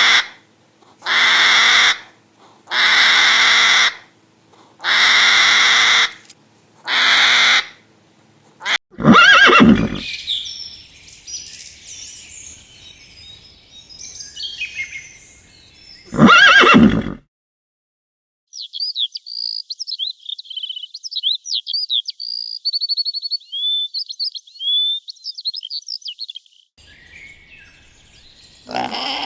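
A run of animal calls: five short, harsh, noisy calls about two seconds apart, then two loud horse whinnies about seven seconds apart, then several seconds of a songbird's rapid, high chirping song.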